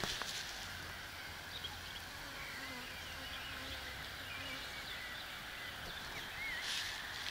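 Rural outdoor ambience with small birds chirping in the background, many short quick calls throughout. A brief rustle comes near the end.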